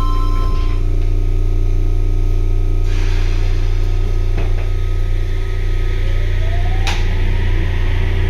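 Inside a Sendai Subway 1000N-series car at a station: a steady low hum throughout, a rush of air and a knock as the doors close, then the IGBT-VVVF inverter's rising whine as the train starts to pull away, with a sharp click near the end.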